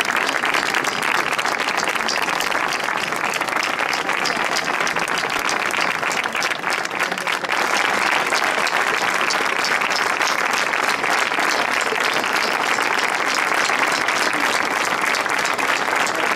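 A crowd applauding, a dense steady patter of many hands clapping, easing briefly about seven seconds in before picking up again.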